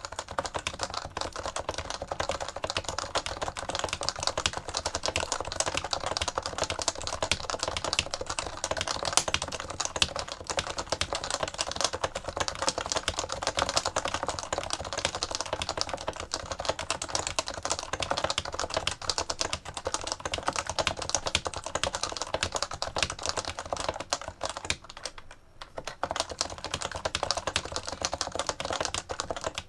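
Stock HHKB Professional Classic keyboard with Topre electrostatic capacitive switches, typed on quickly and without let-up: a dense stream of keystrokes, with a brief pause about 25 seconds in.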